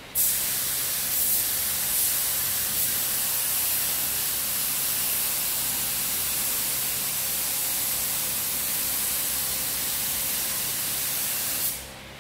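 SATA 5000 RP spray gun with a 1.3 mm nozzle spraying paint: one long, steady hiss of air and atomised paint that starts just after the beginning and cuts off shortly before the end.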